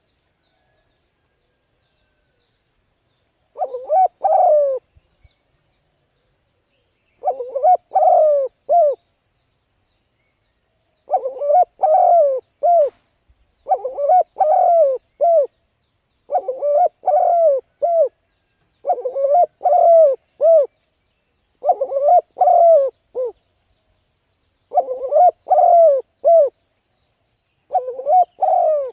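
Spotted dove cooing: a repeated phrase of several low coo notes, nine phrases spaced about three seconds apart, starting a few seconds in. It is the cooing used to lure wild doves and train decoy birds.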